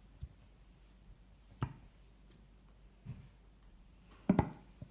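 A few scattered light clicks and knocks from handling a plastic glue bottle over a bowl, the loudest a quick cluster of knocks near the end.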